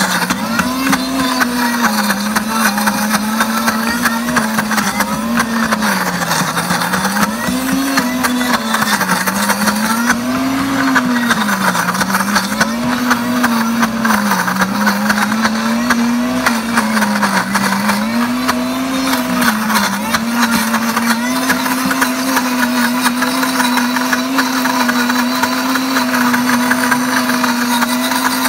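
Pampered Chef Deluxe blender motor running continuously, grinding roasted hazelnuts and coconut oil into a nut butter. Its pitch rises and falls about every two seconds, then holds steady for the last several seconds.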